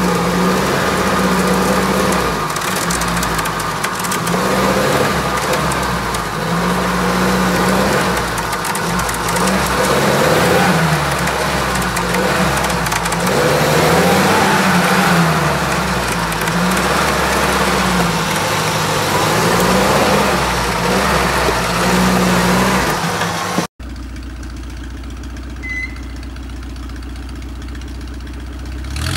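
UAZ-469 off-road 4x4 engine working under load, revs rising and falling every second or so. About three-quarters of the way through it cuts to a second off-road 4x4 engine running quieter and steadier, its revs starting to climb near the end.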